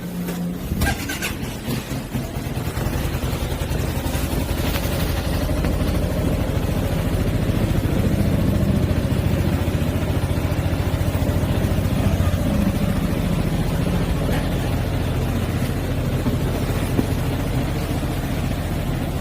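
A few clicks about a second in, then the Yamaha XMAX 300 scooter's single-cylinder engine starts and runs at a steady idle, the scooter starting on a newly made smart key.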